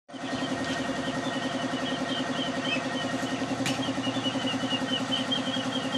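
An engine or motor running steadily with a fast, even pulse.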